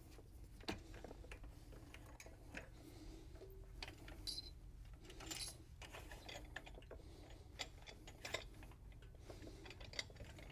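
Faint, irregular clicks and light metallic knocks of hand work on a remote racking cart's actuator and fittings, over a steady low hum.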